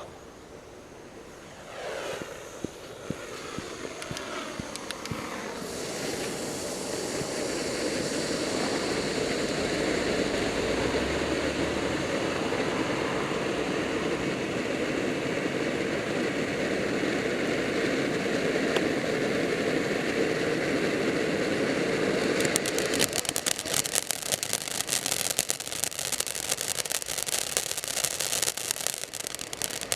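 Soda Pop cherry fountain firework spraying sparks: a steady hissing rush that starts a couple of seconds in and builds, holds for about twenty seconds, then turns to rapid crackling near the end.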